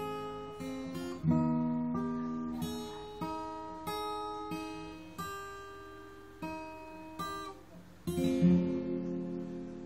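Acoustic guitar played fingerstyle: single plucked melody notes and chords, each ringing and fading, with a full chord struck about eight seconds in that is left to ring out.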